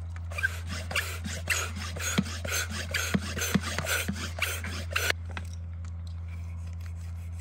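Hand-pumped bolt-hole blower worked in quick strokes, about two a second, each stroke a hiss of air blasting rock dust out of a freshly drilled bolt hole. The pumping stops about five seconds in.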